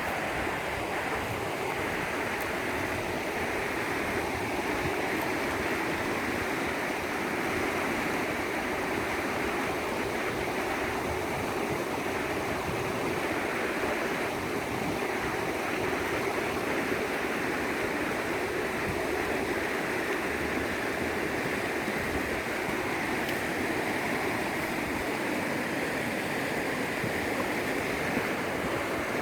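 River current rushing steadily, an even hiss of flowing water.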